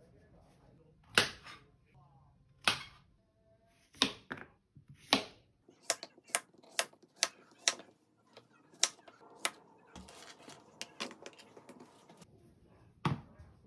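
Chef's knife cutting vegetables on a plastic cutting board. A few spaced knocks come first, then a quicker run of about two strokes a second as a zucchini is sliced into rounds, then softer taps and one last knock near the end.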